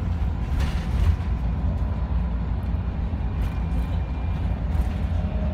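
Steady low rumble of a bus's engine and road noise, heard from inside the passenger cabin.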